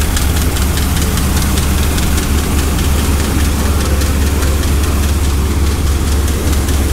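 LS3 V8 with an LSA supercharger idling steadily, with a light repeated tapping from the accessory belt, which the owners take for the belt walking off the bottom pulley and skipping.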